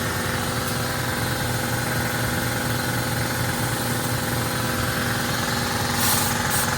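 An engine idling steadily, with a short burst of hissing air about six seconds in.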